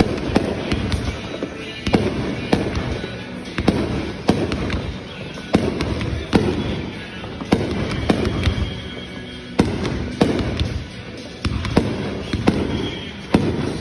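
Aerial fireworks bursting overhead in a quick series of sharp bangs, roughly one a second, each followed by crackling and a rolling echo.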